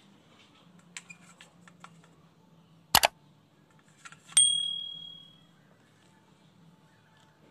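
Plastic toys knocked about in a stainless steel bowl: a few light clicks, a sharp double knock about three seconds in, then a clack that sets the bowl ringing with a high, clear tone that fades over about a second.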